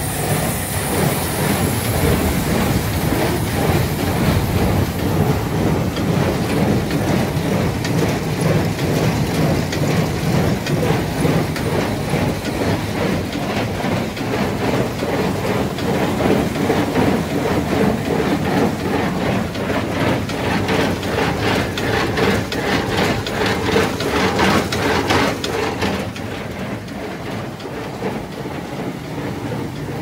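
New Holland 377 small square baler running empty off the tractor's PTO with a steady, rhythmic mechanical clatter, the tractor engine running under it. It is being run up after a service to check that it works. The sound gets somewhat quieter and duller near the end.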